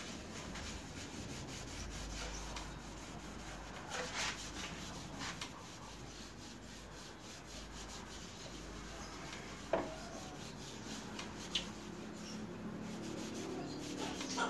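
Hand rubbing back and forth over a Vespa scooter's painted steel legshield, in short scuffing strokes, with a few sharp clicks; the loudest click comes about ten seconds in.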